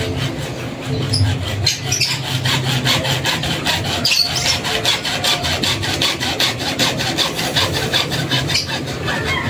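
A hand saw cutting through a PVC water pipe in quick, even back-and-forth strokes.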